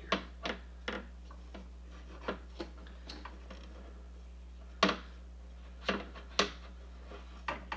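Scattered sharp clicks and taps, about nine at irregular intervals with the loudest a little before halfway, as a borosilicate glass build plate with glued-on magnets is set down and shifted on a Robo 3D R1+ printer's bed. The plate will not seat because its magnets were glued in upside down and are repelling the printer's magnets.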